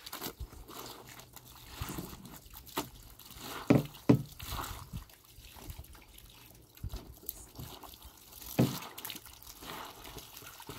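Wet clothes being scrubbed and wrung by hand on a rock in soapy water, with water splashing and dripping and a few louder splashes about four seconds in and again near the end.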